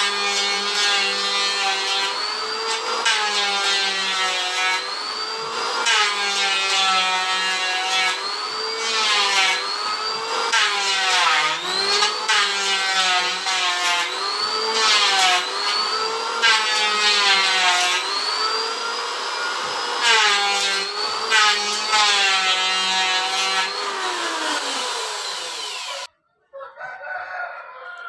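Electric wood planer running and cutting wood in repeated passes, its motor whine sagging in pitch and recovering every second or two as the blades take the wood. It stops abruptly near the end.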